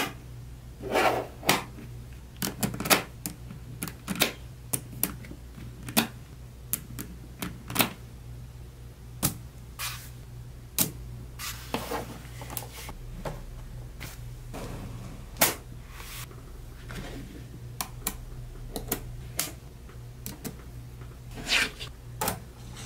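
Small neodymium magnet balls clicking and snapping together as blocks of them are pressed into place: irregular sharp clicks, some in quick clusters, over a low steady hum.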